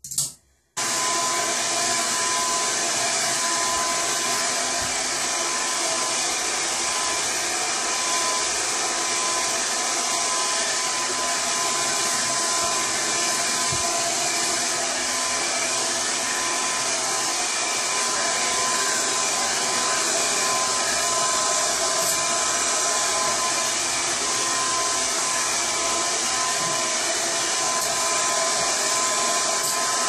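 Red by Kiss double-layer pik blow dryer switching on after a brief click, then running steadily as it dries hair: a loud, even rush of air with a thin, steady whine.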